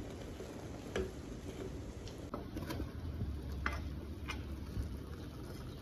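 An orange plastic spatula stirring and scraping cooked pumpkin leaves in a metal pot, then scooping them onto a china plate, with about five light knocks of the spatula against the pot and plate.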